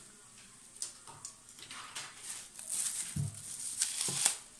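Clear plastic film around a smartwatch box crinkling as hands pull and peel it off, faint at first and louder from about halfway, with a couple of soft knocks from handling the box.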